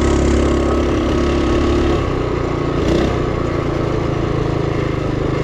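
Duromax 212cc single-cylinder dual-fuel engine of a Mega Monster Moto mini bike running on gasoline while riding at steady throttle. It eases off about two seconds in, and there is a brief knock near three seconds.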